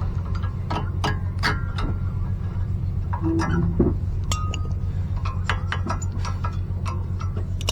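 Scattered light metallic clinks and clicks, like tools and brake parts being handled and set down, over a steady low hum.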